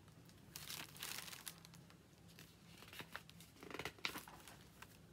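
Faint paper rustling and crinkling in two spells, about half a second in and again near the end: a picture-book page being handled and turned.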